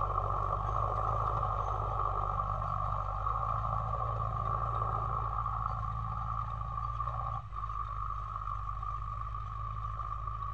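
Sonalika DI-55 RX tractor's diesel engine running steadily as the tractor works the field, heard from a distance and fading slightly as it moves away.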